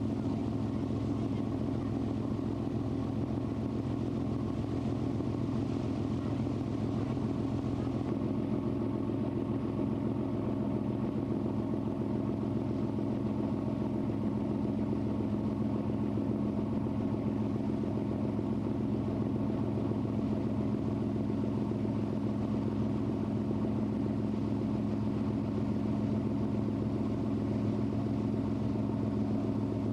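Lake excursion boat's engine running steadily, a low even drone with a constant hum.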